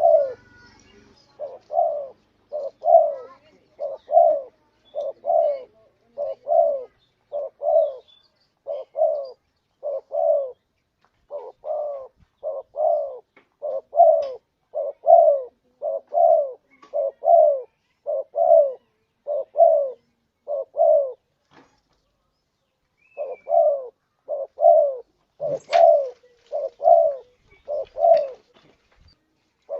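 Spotted dove (tekukur) cooing as a lure call: a long string of short, low coos, about one a second. The coos break off for a couple of seconds about three quarters of the way through, then resume.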